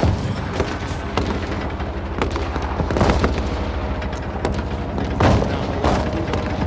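Hip-hop song intro: a low, steady music bed under a dense, irregular run of sharp bangs and booms like gunfire, heaviest about halfway through and again near the end.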